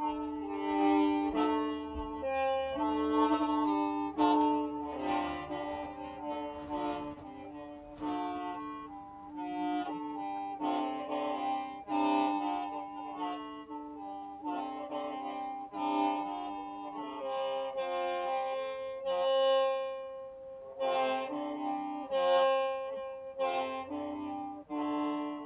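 Hmong qeej, a bamboo free-reed mouth organ, being played: several reed tones sound at once as a chord, the notes shifting every second or so in a running melody.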